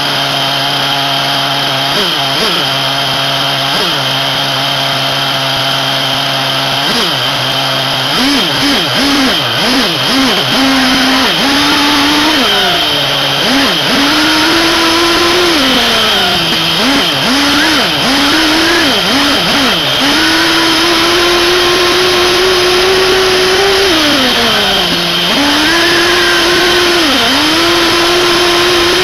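SH PT21-P3 3.48 cc nitro glow engine of a 1/8 RC buggy, heard from a camera mounted on the car. It idles steadily with a few short blips of throttle, then about eight seconds in revs up and down over and over as the car drives, holding high revs for several seconds at a time with a brief drop near the end.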